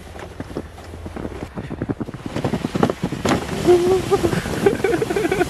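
Footsteps crunching through deep snow as a plastic toy sled is pulled over it, with wind rumbling on the microphone. The crunching grows louder about two seconds in, and a brief voice is heard in the second half.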